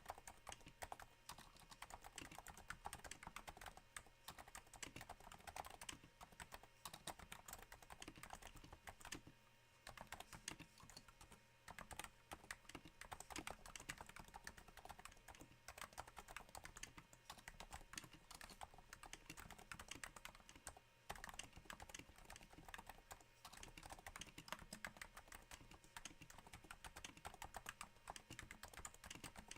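Continuous typing on a Cooler Master Novatouch with Topre switches damped by Hypersphere silencing rings, sitting on a thin desk mat: a dense, rain-like patter of soft key strokes. It breaks off briefly about nine and a half and twenty-one seconds in.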